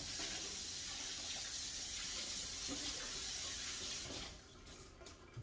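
Kitchen faucet running steadily while hands are rinsed under it, shut off about four seconds in.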